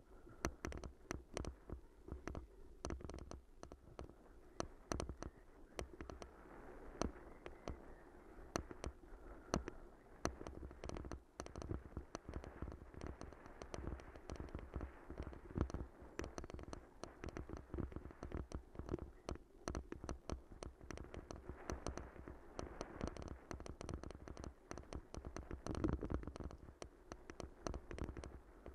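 Bicycle rattling over a rough, rutted dirt track: dense, irregular clicks and knocks from the bike jolting over bumps, over a steady low rumble from the tyres on the ground.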